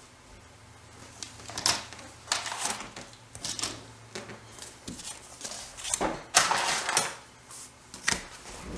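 Scissors cutting out a shape from scrapbook paper: a run of irregular snips and paper rustles, busiest near the end.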